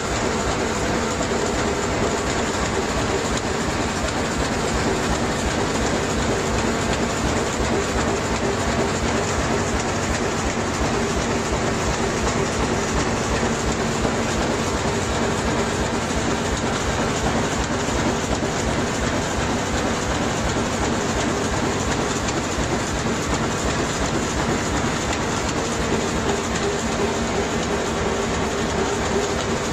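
Pizza box making machine running, with corrugated cardboard sheets passing through its rotary die-cutting rollers: a steady, fast mechanical clatter over a constant hum.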